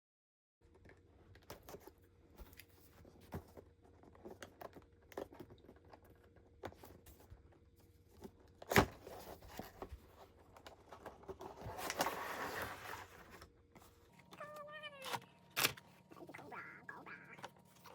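Cardboard and plastic toy packaging being opened by hand: scattered clicks and taps, one sharp snap about nine seconds in, and a few seconds of tearing and rustling around twelve seconds. Short squeaks follow near the end.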